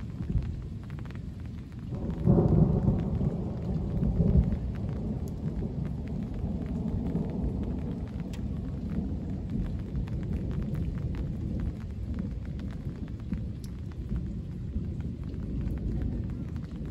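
Thunder rumbling: an earlier rumble fades in the first second or two, then a new peal breaks about two seconds in, loudest until about four and a half seconds, and dies into a long, low, steady rumble. Light rain, with scattered drop ticks, runs under it.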